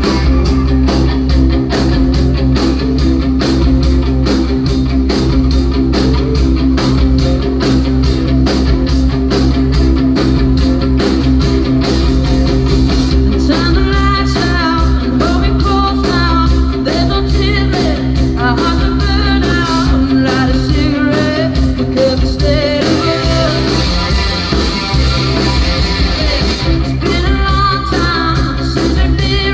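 A rock band playing live: guitars, bass and drums with a steady beat, loud throughout. About halfway through a higher melody line comes in over the band, and it returns near the end.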